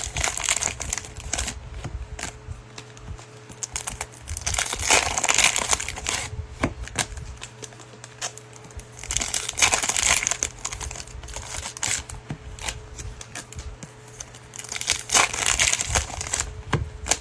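Panini Mosaic football card packs being torn open by hand, the wrappers crinkling in three loud bursts about five seconds apart, with light clicks of the cards being handled in between.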